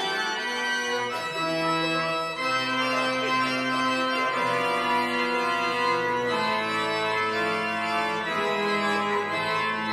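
Organ postlude: an organ playing slow, sustained chords that change every second or two at an even level.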